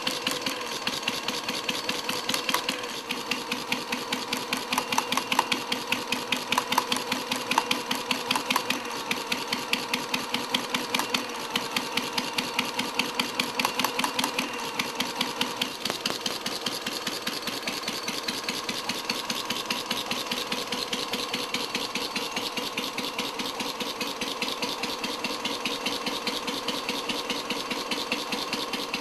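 Quarter-scale replica of a 1912 Red Wing Thoroughbred hit-and-miss gasoline engine, with a miniature magneto, running steadily with a fast, even mechanical clatter of ticks and occasional louder strokes. It is driving a small DC generator that lights miniature lamps.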